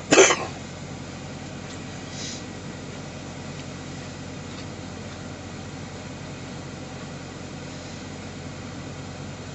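Semi truck's diesel engine idling with a steady low hum. A short cough or throat-clear cuts in at the very start.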